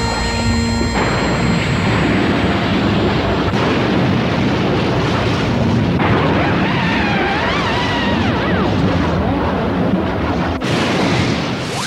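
Cartoon explosion sound effect: a long, continuous rumbling blast that starts about a second in, with a wavering high tone riding over it through the middle.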